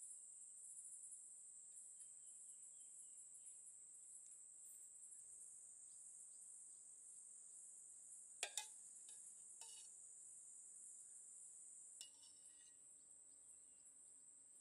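Faint, steady high-pitched chirring of insects, with a few light clicks around the middle.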